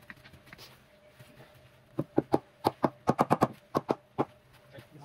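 A quick run of about a dozen sharp knocks, starting about two seconds in and lasting a couple of seconds: tapping during porcelain tile laying, a tile or edge piece being knocked down into its bed.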